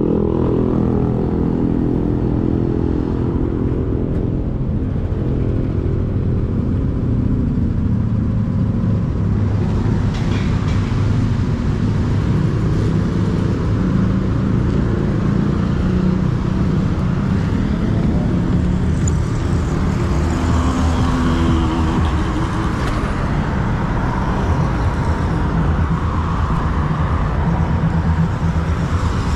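Yamaha NMAX 155 scooter's single-cylinder engine running steadily under way, its drone shifting in pitch as the scooter speeds up and slows, over continuous road and traffic noise.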